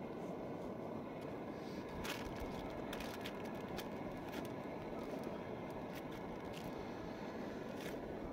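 Footsteps crunching on dry pine-needle litter and scraping on a tent groundsheet as shoes are slipped off and the tent is stepped into: a handful of short, sharp crackles and scrapes from about two seconds in, over a steady low background rumble.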